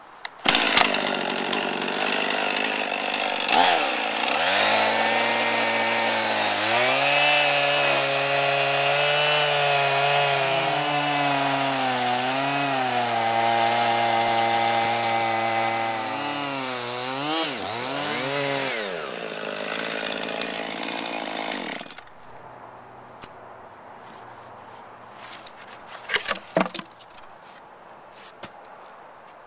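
Chainsaw running at high revs, cutting through a log. Its pitch sags as the chain loads up in the cut and recovers in between, and it stops suddenly after about twenty seconds. A few sharp knocks follow near the end.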